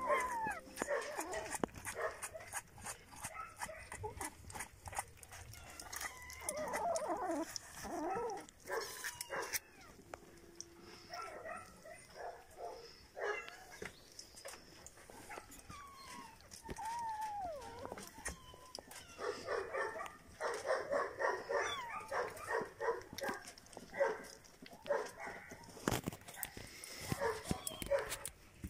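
Pets calling: a few drawn-out falling cries, then a quick run of short, repeated calls about two-thirds of the way through, with scattered small knocks.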